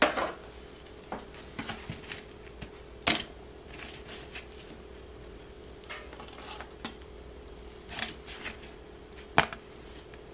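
Scattered clicks and clatters of metal serving tongs and paper plates as bacon and eggs are dished up. The sharpest knocks come right at the start, about three seconds in and near the end, over a steady low hum.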